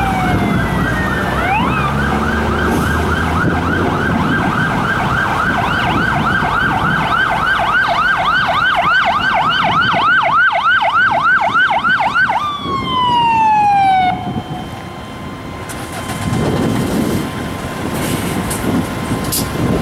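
Fire engine siren yelping, its pitch rising and falling rapidly about three times a second over the rumble of truck engines. About twelve seconds in it winds down in one falling tone, leaving the engine and traffic noise of the passing fire trucks.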